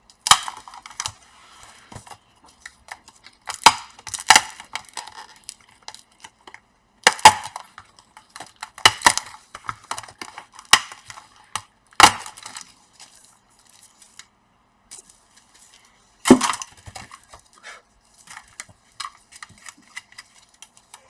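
Scattered sharp clicks and clattering knocks of hard plastic laptop parts being handled and set down on a work surface, with a quiet stretch of a few seconds past the middle.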